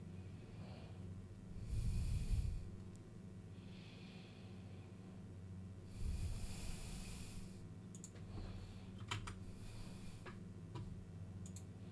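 A man breathing close to a microphone: slow breaths a few seconds apart, the two loudest exhales coming about two seconds in and again about six seconds in. A few sharp clicks come in the second half over a faint steady low hum.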